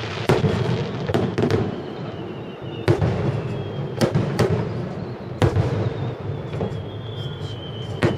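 Aerial firework shells bursting: a series of sharp booms, about eight, over a steady low rumble.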